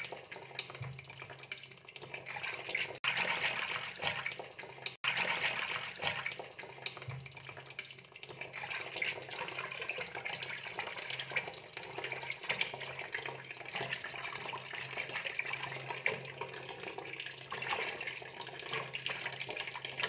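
Water running and splashing steadily, with a faint low hum beneath. It cuts out for an instant twice, about three and five seconds in.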